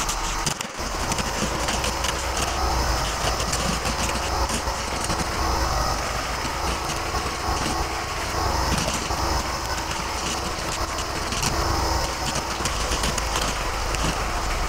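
Portable air compressor running steadily, with repeated sharp pops of a pneumatic stapler firing staples through quarter-inch plywood underlay into the subfloor.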